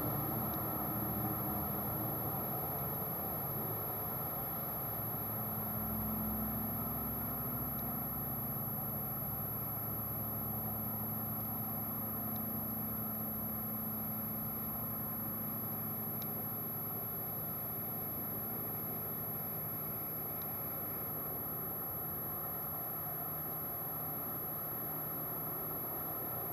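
A steady low mechanical hum that stays unchanged throughout.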